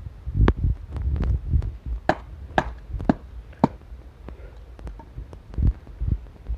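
A series of sharp knocks: a couple in the first second, then four evenly spaced about half a second apart from about two seconds in, and a dull thump near the end, over a low rumble.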